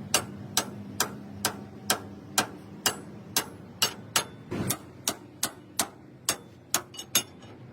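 Hammer striking metal in a steady rhythm, about two sharp blows a second, each with a short ring, with two quicker blows near the end.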